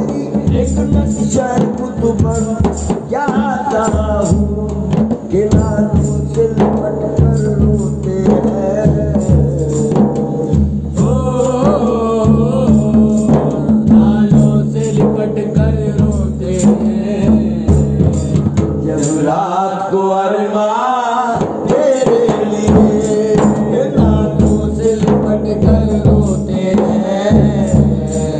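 Live qawwali: male voices singing over a daf frame drum and hand drums beating a steady rhythm. About two-thirds of the way through, the drums drop out for a couple of seconds while a voice carries on alone, then the rhythm comes back.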